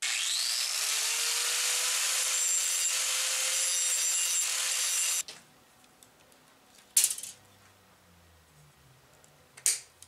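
Handheld angle grinder spinning up and grinding the flattened ends off the steel pins that hold a door handle to its metal bracket, a steady high whine over harsh grinding noise that cuts off about five seconds in. A sharp clack follows about two seconds later, and a few clicks come near the end.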